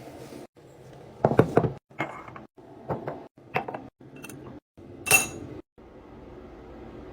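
Containers and jars being set down and arranged, a series of knocks and clatters, with a loud ringing glassy clink about five seconds in.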